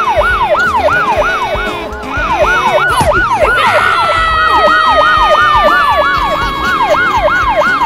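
Police siren in a fast yelp, its pitch sweeping up and down about three times a second. About halfway through, a second long tone joins it and slowly falls in pitch.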